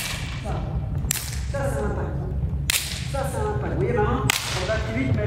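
Four sharp slaps of a hand striking a volleyball, each ringing briefly in the gym hall.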